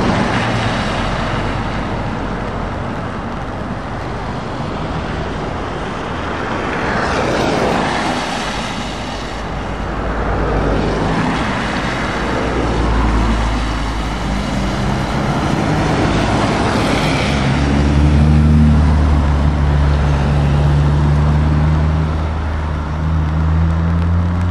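Traffic passing on a wet road: steady tyre hiss and spray, swelling as vehicles go by one after another. In the second half a heavy truck's diesel engine joins in with a low, steady drone that grows louder as an Iveco tractor unit passes.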